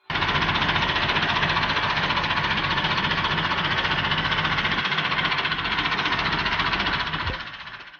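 Massey Ferguson 1080 tractor's diesel engine running at a steady idle with an even, rhythmic clatter. It fades out near the end.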